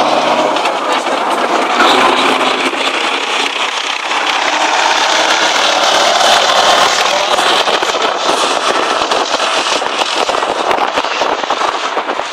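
Soviet-built tank driving past close by, its diesel engine running hard under a dense, continuous crackle and clatter of the steel tracks.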